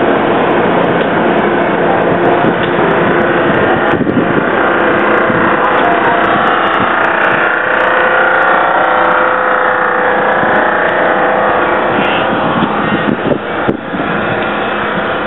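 Passenger rail cars rolling past close by: a loud, steady rumble of steel wheels on the rails, with faint steady tones running through it.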